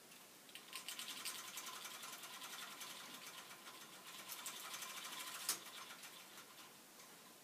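The plastic gear train of a K'Nex grandfather clock clicks rapidly as a subsidiary weight is lifted by hand. The clicking stops after about five seconds with one sharp, louder click, as a yellow gear is pushed in to engage.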